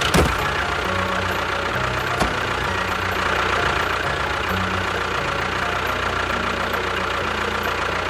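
The motor of a miniature tractor or bulldozer model runs steadily, with a sharp click right at the start and another about two seconds in. Low background music plays underneath.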